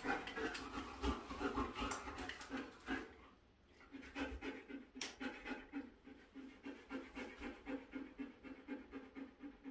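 Belgian Malinois panting rhythmically with her mouth open, about three pants a second, with a brief pause about three seconds in.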